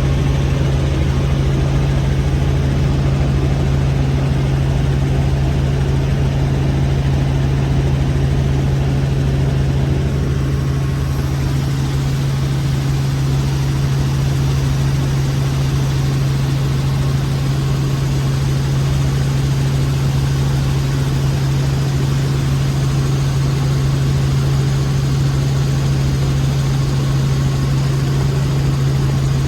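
Helicopter in flight heard from inside the cabin: a steady engine and rotor drone with a strong low hum.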